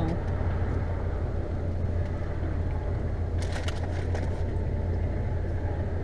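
Steady low hum of a van's idling engine heard inside the cabin, with a short run of clicks about three and a half seconds in.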